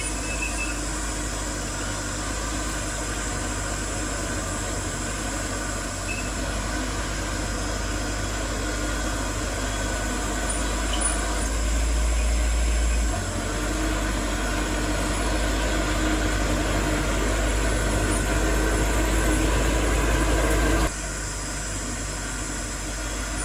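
Heavy diesel construction machinery running steadily, a deep engine rumble that grows slowly louder and then drops off suddenly near the end.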